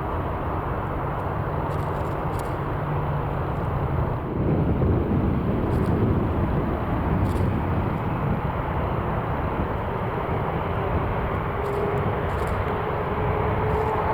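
Jet engines of a Boeing 787-9, Rolls-Royce Trent 1000s, running with a steady deep rumble that swells about four seconds in. A faint whine rises slowly near the end.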